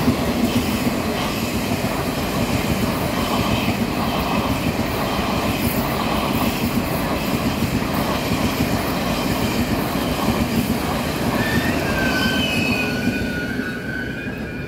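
Taiwan Railways E1000 push-pull Tze-Chiang express passing: a steady rumble of the cars' wheels on the rails with a regular clickety-clack, and thin, high wheel squeals near the end as the last cars go by.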